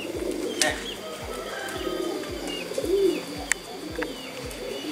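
Domestic pigeons cooing, with short high chirping calls and two sharp cracks, about half a second and three and a half seconds in.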